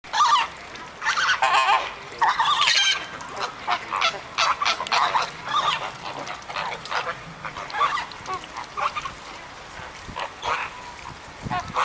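A flock of flamingos calling: many overlapping calls, loudest and densest in the first three seconds, then shorter calls scattered through the rest.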